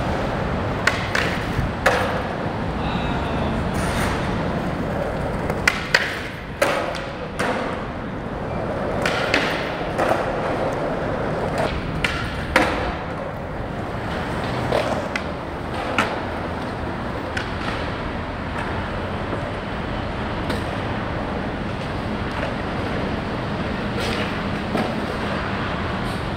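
Skateboard urethane wheels rolling over concrete, broken by about a dozen sharp clacks and thuds of the board popping, hitting obstacles and landing, most of them in the first half.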